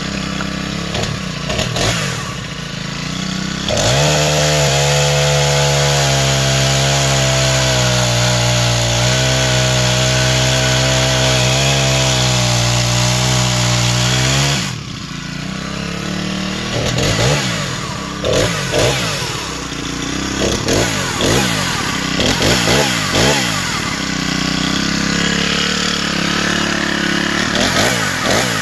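Senix 50cc four-stroke chainsaw engine. After a few seconds at lower, varying revs, it is held at full throttle for about ten seconds, its pitch sagging slightly as it cuts through wood. It then drops back and is revved up and down repeatedly.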